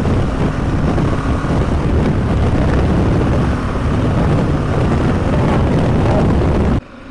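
Motorcycle engine running steadily at cruising speed, with wind rushing over the microphone. The sound cuts off abruptly near the end.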